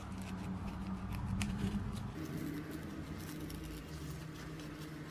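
Brittle old newspaper crackling and rustling faintly as fingers unwrap and handle it, in small scratchy crackles.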